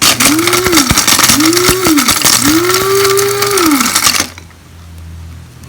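Capresso electric coffee and spice grinder's blade chopping dehydrated pineapple pieces, run in three pulses with the motor spinning up and down each time and the dry pieces rattling in the cup. The last pulse is the longest, and the grinding stops about four seconds in.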